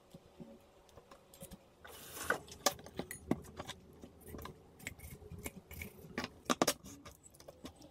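Kitchen knife cutting up a whole raw chicken on a wooden cutting board: irregular clicks and knocks of the blade against the board, with a short scrape about two seconds in.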